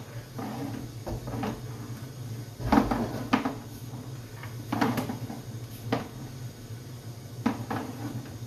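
Sewer inspection camera being pulled back through the pipe, its push cable and reel giving irregular knocks and clunks, about half a dozen, over a steady low hum.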